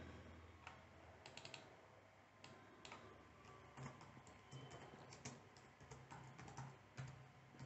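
Faint computer keyboard typing: irregular key clicks.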